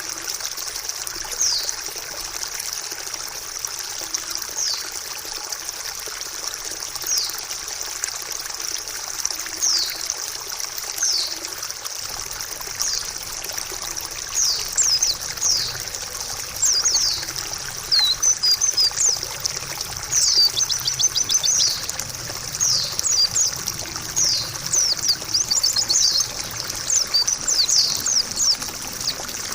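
Pleci (white-eye) calling with short, high, downward-sliding notes, sparse at first and coming much faster, in quick clusters, over the second half. The calls sit over a steady trickle of running water.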